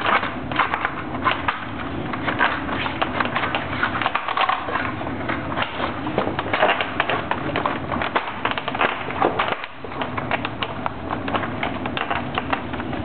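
Hurd double-hung window balance assembly and its jamb track clicking and rattling as they are worked by hand: a continuous run of small, sharp, irregular clicks and knocks.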